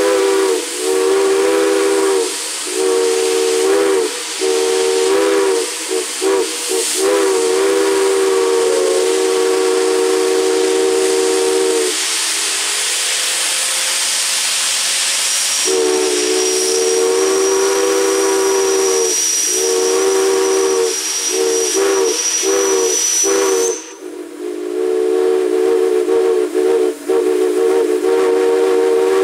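Chime steam whistle sounding a chord of several tones, first in a quick string of short toots and then in long held blasts, over a steady hiss of escaping steam. A little before halfway the whistle stops for a few seconds, leaving only the hiss. A thin high-pitched whistle then sounds alongside the chord for several seconds, rising slightly before it cuts off.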